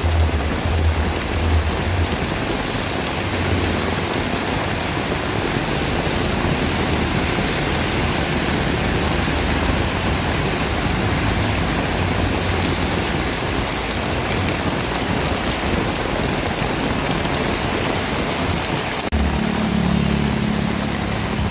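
Heavy rain pouring steadily, an even hiss of water. About 19 seconds in the sound changes abruptly and a low motor hum joins the rain.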